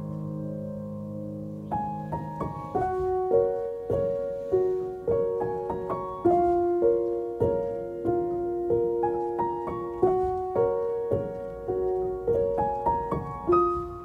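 Soft background piano music: a held chord, then a gentle melody of single notes from about two seconds in, each note fading after it is struck.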